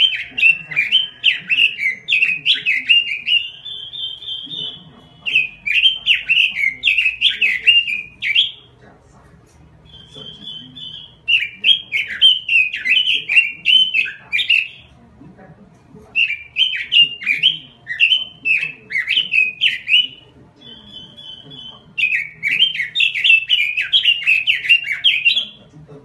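Pekin robin (red-billed leiothrix) singing loudly and continuously: five rich warbling phrases of about three to four seconds each. Between some phrases come short runs of quick, even, high notes.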